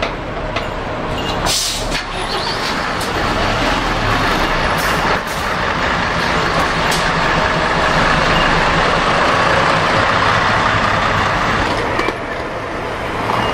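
Tokai Bus city route bus's diesel engine idling at a stop, with a short sharp hiss of compressed air about a second and a half in and a smaller one about five seconds in.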